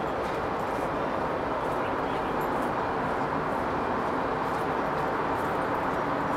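A steady rushing background noise that holds at an even level throughout, with no distinct events.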